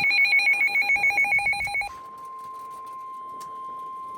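NOAA Weather Radio alert tones: a loud burst of fast-warbling electronic data tones that cuts off about two seconds in and gives way to the steady, single-pitch 1050 Hz warning alarm tone that announces a warning broadcast.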